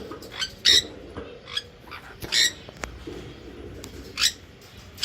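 Parrots calling: about six short, harsh squawks at irregular intervals, with a single sharp click a little under three seconds in.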